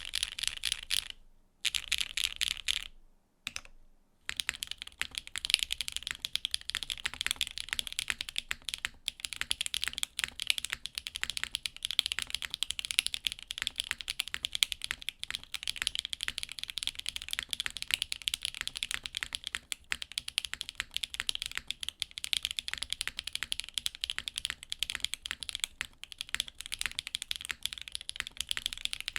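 Typing on a Vøid65 mechanical keyboard built with Akko x HMX Cilantro tactile switches on a nylon plate, top-mounted in a polycarbonate case, with GMK Panels keycaps. A few short bursts of keystrokes with brief gaps, then steady fast typing from about four seconds in.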